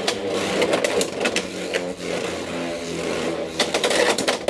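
Beyblade X spinning tops battling in a plastic stadium: a whirring spin with many sharp clacks as they strike each other and the stadium walls, coming thickest near the end.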